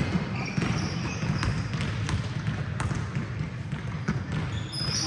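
Basketballs bouncing on an indoor court during a game, a string of sharp bounces over the steady noise of the hall. Short sneaker squeaks come about half a second in and again near the end.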